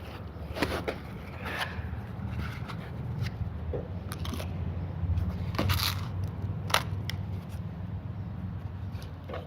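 Packaging being handled and pulled apart: scattered scrapes, crunches and a few sharper knocks of packing foam and box. Under them runs a steady low hum.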